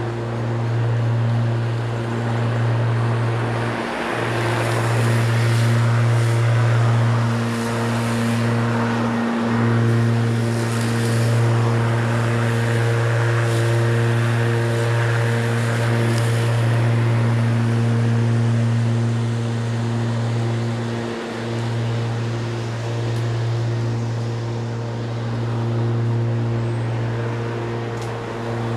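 Spear & Jackson S4037CR 40V cordless rotary lawnmower running: a steady electric motor-and-blade hum that dips briefly three times, with a rushing noise that swells for several seconds in the middle as the mower comes close.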